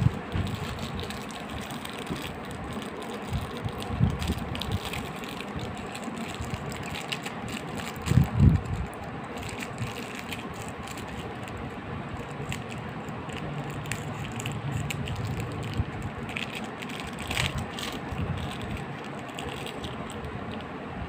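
Crinkling and rustling of a small clear plastic wrapper as a toy is unwrapped by hand, with many small clicks. Now and then a dull bump, the loudest a cluster about eight seconds in.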